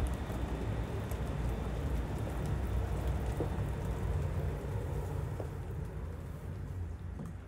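Steady low rumble of outdoor city ambience, the noise of traffic in the open air, easing off a little near the end.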